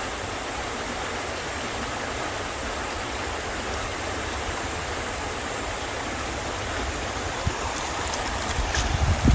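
River water flowing steadily, a constant even rush. A few low bumps of wind on the microphone come in near the end.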